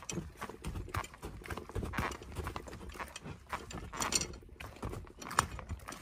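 Footsteps of a hiker walking at a steady pace on a dirt forest trail, each step a soft thud.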